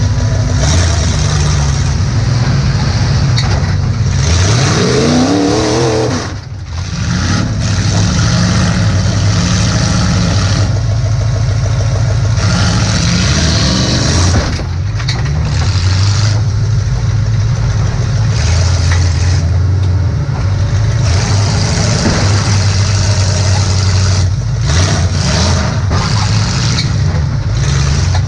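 Demolition derby car's engine running hard, heard from inside the car, with two rising revs, one about four seconds in and one about twelve seconds in, and a brief drop in loudness after the first.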